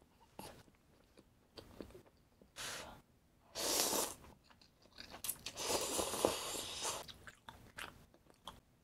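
Eating sounds: small mouth clicks, then bites and chewing with crunchy bursts. The loudest is a long crunchy stretch of about a second and a half past the middle.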